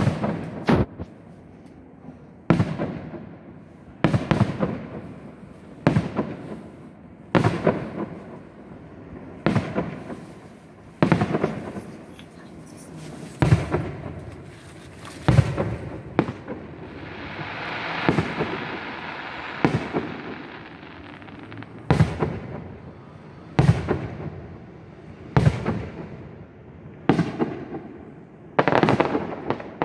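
Fireworks display: aerial firework shells bursting in a steady series, a sharp bang about every second and a half, each with a trailing echo, and a longer hissing stretch about halfway through.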